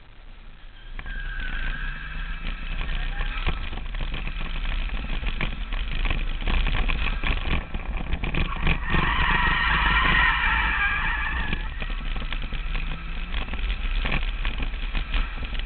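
Nissan Skyline R33 engine revving hard with tyre squeal. It grows loud about a second in and is loudest around nine to eleven seconds.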